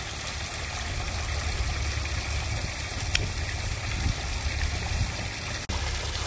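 Steady rush of water from a manmade waterfall pouring into a pool.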